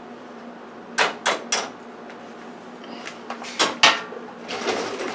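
Sharp knocks and clatter of kitchen utensils and cookware: three quick knocks about a second in, four more around three to four seconds in, then a run of rattling near the end.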